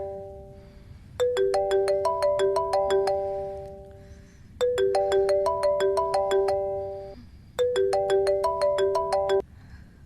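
Mobile phone ringtone: a short melody of plucked notes repeating every few seconds for an incoming call, cutting off suddenly near the end.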